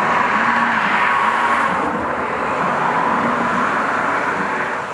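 Road traffic on the bridge: steady tyre and engine noise from passing cars, swelling twice and easing off near the end.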